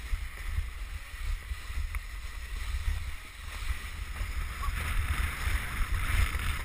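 Wooden krňačka sledge sliding fast down a packed snow track: its runners hiss on the snow under heavy wind buffeting on the microphone. The hiss grows louder about five seconds in.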